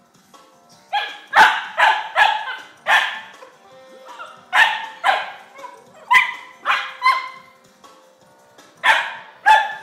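Boxer puppy barking in three quick runs of short barks, about a dozen in all, starting about a second in. It is excited barking at another dog over that dog's bone.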